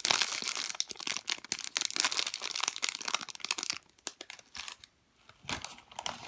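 Plastic packaging crinkling and rustling as it is handled, stopping for about a second and a half past the middle before starting again.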